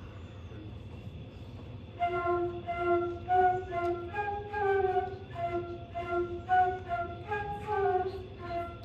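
Flute playing a melody of short, separate notes, which starts about two seconds in after a low room hum.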